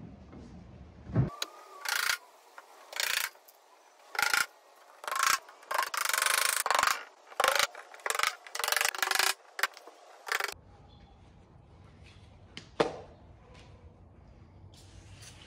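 A hammer tapping nails into the thin wooden backing board of a hutch cabinet, in a dozen or so uneven bursts that stop about ten seconds in. A single sharp knock follows a couple of seconds later.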